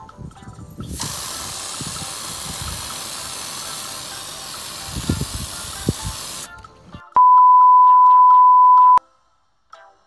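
Aerosol insecticide can sprayed in one long steady hiss of about five seconds, over light background music. Near the end a loud steady electronic beep tone sounds for about two seconds and cuts off abruptly.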